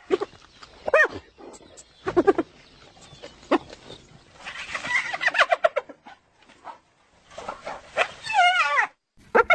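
Hyenas calling: a short call rising and falling in pitch about a second in, another brief call soon after, a run of rapid notes falling in pitch around the middle, and a wavering, stuttering call near the end.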